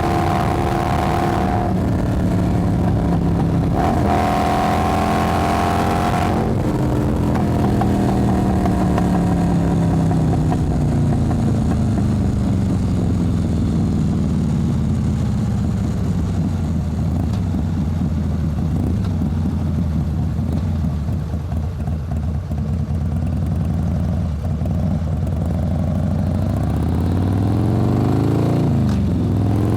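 Motorcycle engine at high revs. The throttle is eased off briefly and reopened, then the pitch falls slowly for about twenty seconds as the bike slows, and the engine revs up again near the end.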